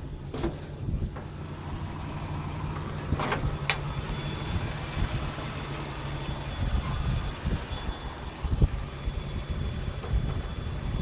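AMC 4.2-litre (258) inline-six engine in a Jeep CJ-8 idling steadily, with a few sharp clicks about three to four seconds in.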